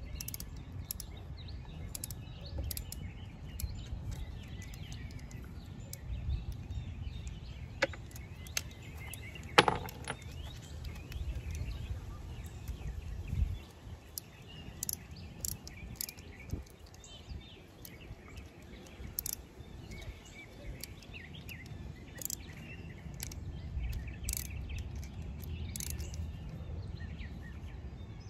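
Screwdriver tightening a worm-gear hose clamp on an outboard's fuel filter: faint scattered clicks and scrapes, with one sharper click about ten seconds in, over a low background rumble.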